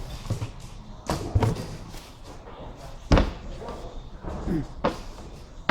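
Flat-pack cabinet panels being handled and set down, giving a few knocks and thuds, the loudest about three seconds in.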